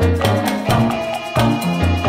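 Background music with a steady percussive beat over a moving bass line.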